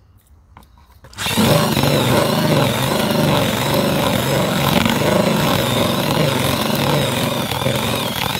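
Cordless drill with a paddle mixer starting about a second in and then running steadily, churning damp fishing groundbait in a plastic bucket as water is worked into it.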